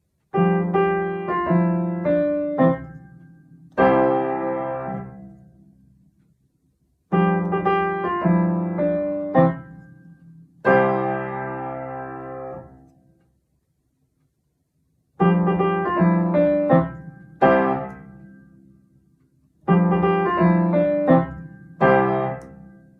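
Piano playing four short phrases, each a quick run of notes ending on a held chord that fades away, with a pause of silence between phrases.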